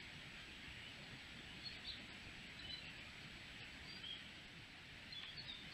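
Faint woodland birds giving short, scattered chirps over the steady hiss of a trail camera's microphone, with a thin, high, steady whine from the camera running underneath.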